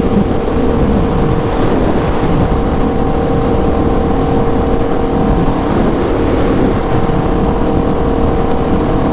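Aprilia Tuono V4 1100 Factory's V4 engine running at steady revs while cruising, with wind rushing over the helmet microphone.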